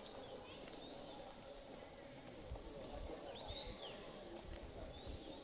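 Wild birds chirping with short high calls, some sweeping up and some down, over a faint steady outdoor murmur.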